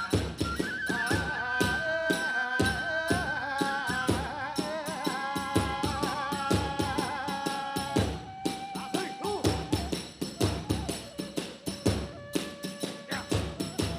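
Hiroshima kagura accompaniment: a taiko drum beaten in a fast, dense rhythm with small hand cymbals clashing, under a bamboo flute playing a wavering melody. The flute line thins out about eight seconds in while the drumming keeps going.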